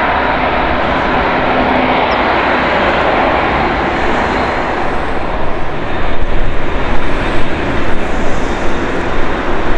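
Airbus A380's Engine Alliance GP7270 turbofans running at low taxi power: a steady jet rumble and hiss with a faint high whine. About six seconds in, the sound grows louder and more uneven.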